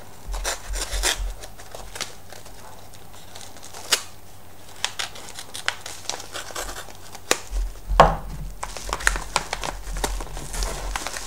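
Folding knife slitting open a mailing envelope: scraping, tearing and crinkling of the envelope with a scatter of sharp clicks, busiest and loudest from about eight seconds in.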